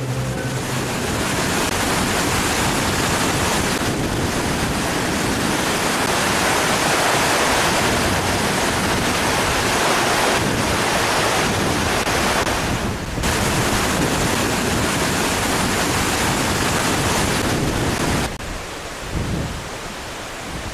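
Mountain stream rushing over rocks and small rapids: a loud, steady rush of water. It breaks off abruptly a few times and drops to a quieter, lower rush near the end.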